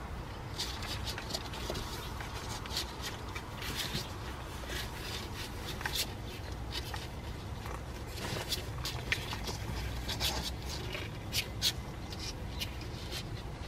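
Newborn San'in Shiba puppies crawling and nursing against their mother, making small irregular scratches and clicks as their claws scrabble on the cardboard floor, over a steady low hum.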